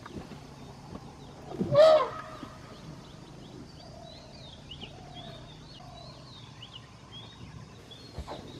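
A single loud, brief animal call about two seconds in, over faint, repeated chirping of small birds.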